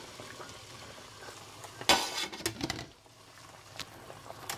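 Pot of vegetable broth boiling while hot sautéed vegetables are tipped into it from a frying pan, with a loud burst of noise about two seconds in, lasting under a second, as the pan's contents hit the broth, and a few light clicks near the end.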